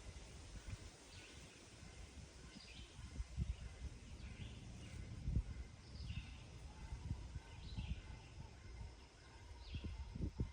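Farmyard dawn ambience: small birds give short chirps about once a second, over an uneven low rumble with a few louder low thumps.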